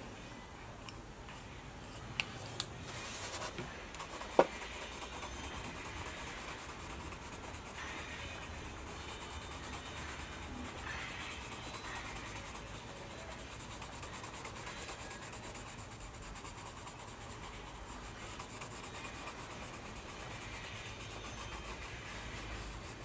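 Coloured pencil shading on sketchbook paper: a steady, scratchy rubbing of the pencil lead going back and forth. It comes after a few light clicks and one sharp tap about four seconds in, as the pencils are handled and switched.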